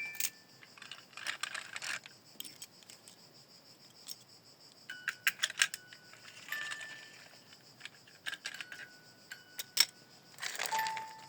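Small hard clicks and clatter in irregular bursts, like toy vehicle models being handled and set down, with short chime-like tones in between.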